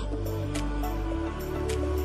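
Instrumental background music: sustained bass notes that change about a second in, a simple melody, and light, regular percussion hits.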